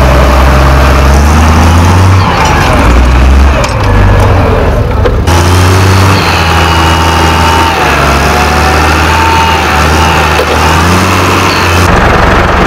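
Case IH 956XL tractor's diesel engine running under load as it climbs and packs down a grass silage pile. The engine pitch wavers up and down over a constant low rumble.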